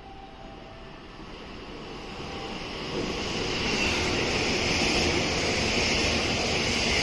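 JR West 225 series (100 subseries) electric train passing through the station at speed without stopping. Its running noise grows from about two seconds in and stays loud from about four seconds in as the cars go by.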